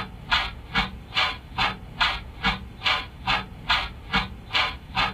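A swishing noise repeating evenly about two and a half times a second, each stroke with a soft low thump under it.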